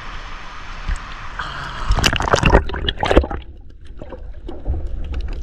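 Sea water splashing and sloshing around the camera, in loud irregular splashes between about two and three seconds in, then dropping to a low rumble with faint clicks.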